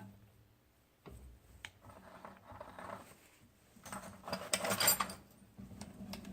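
Light metallic clicks and knocks from an aluminum workpiece being handled, with a brief, louder scraping rattle about four seconds in.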